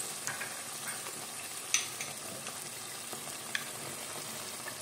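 Korma gravy sizzling steadily in a hot pan, with a few sharp clicks of utensils against the pan, the loudest a little under two seconds in.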